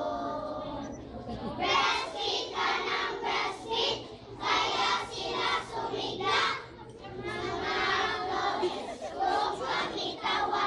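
A crowd of schoolchildren shouting and singing along in repeated loud bursts, with short lulls between them.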